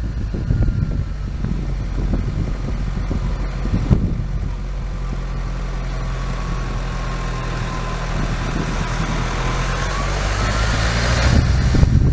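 A motor vehicle's engine running steadily, with a thin whine that slowly falls and then climbs again near the end as a rushing noise swells.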